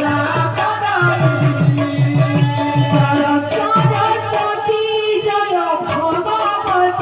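Devotional kirtan music: a sung melody over a hand drum beaten in a quick, steady rhythm of several strokes a second.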